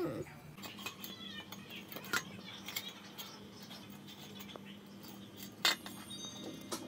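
A dog licking the last crumbs from a stainless steel food bowl and nudging the bowl across the floor into a corner: scattered clinks and taps of the metal bowl, with one louder knock near the end.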